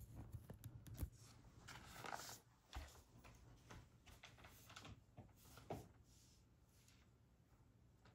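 Near silence: quiet room tone with a few faint scattered taps and rustles, settling to stillness in the last couple of seconds.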